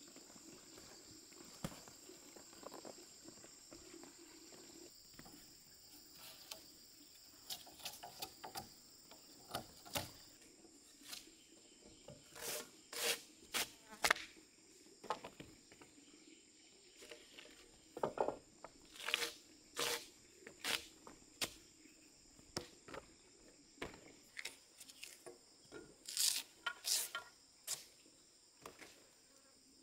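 A long knife scraping and hacking along a debarked log in short, repeated strokes, coming in runs about a second apart, over a steady high drone of insects.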